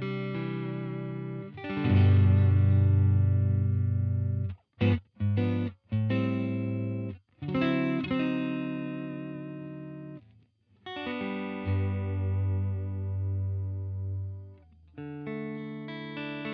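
Electric guitar, a Fender Stratocaster played through a UAFX Dream 65 Reverb amp-emulator pedal, strumming ringing chords, with a run of short, choppy chord stabs a few seconds in and a brief break near the middle.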